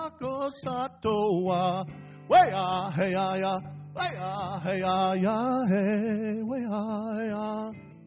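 Man singing a traditional Native American song in long, wavering held notes to his own acoustic guitar. The voice breaks off near the end.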